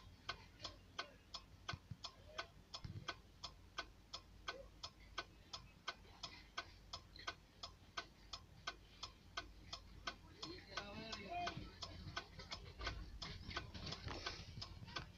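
A steady, even ticking of sharp clicks, about three a second, with faint voices in the background, most noticeable about ten seconds in.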